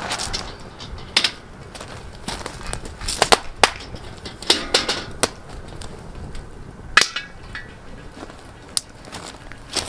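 Firewood burning, crackling and popping with an irregular scatter of sharp snaps, and one louder knock about seven seconds in.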